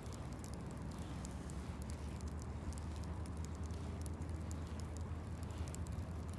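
Fishing reel being cranked in a slow, steady retrieve, with faint irregular ticking over a steady low hum.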